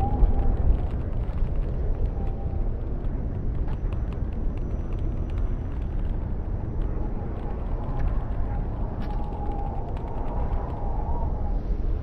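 Wind blowing steadily with a deep rumble, while a windmill's wooden sails and mechanism click and creak faintly.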